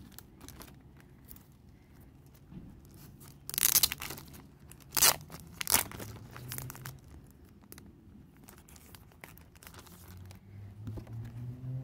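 Clear plastic sleeves and wrapping on a photo-card set being torn open and crinkled by hand. The loudest rips come about three and a half to six seconds in, with lighter crackling handling around them.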